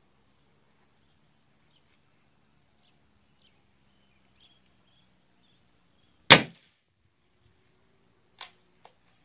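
One sharp shot from a Gamo Black Bull IGT Mach 1 .177 break-barrel gas-piston air rifle about six seconds in, the pellet punching into the paper target. Two much fainter clicks follow near the end.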